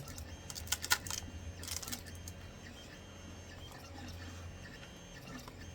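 Crisp clicks and snaps of resin 3D-print supports being broken off the model by hand, clustered in the first two seconds, over a steady low hum.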